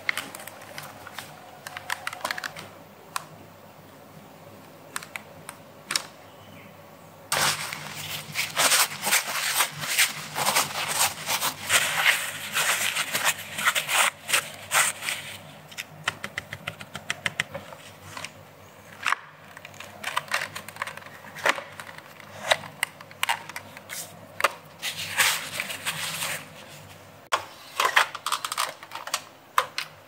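Plastic parts of a Dyson Digital Slim cordless vacuum being wiped and handled: a cloth rubbing and scraping on the plastic, with many sharp plastic clicks and knocks. Sparse for the first few seconds, then busy from about seven seconds in.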